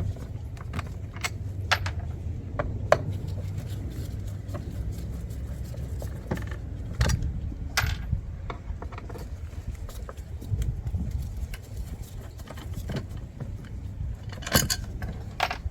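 Irregular clicks, taps and light scrapes of hand tools and small metal parts being handled while working inside a car's door panel around the speaker, with a louder cluster of clicks near the end, over a steady low rumble.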